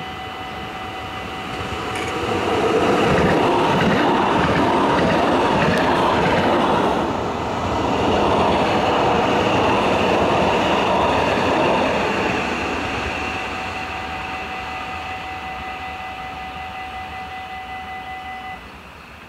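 U-OV light-rail tram running past close by on ballasted track, its wheels rumbling on the rails. The sound builds over the first couple of seconds, stays loud for about ten seconds with a short dip in the middle, then fades away. A steady high whine runs underneath and cuts off near the end.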